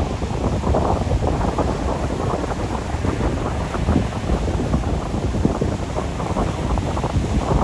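Sea waves washing on the shore, with strong wind buffeting the microphone in a steady rough rumble.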